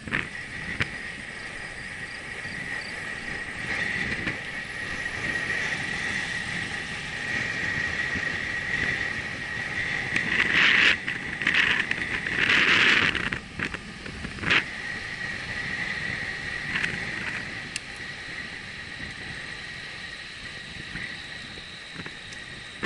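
Bicycle rolling along a paved path at about 22 km/h, heard from a camera on the bike: steady tyre and wind noise with a thin high whine running under it, and a few louder bursts of noise about halfway through.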